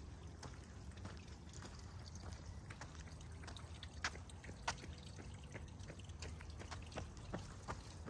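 Small water trickling and dripping: irregular little drips and plinks, the sharpest two about halfway through, over a low steady rumble.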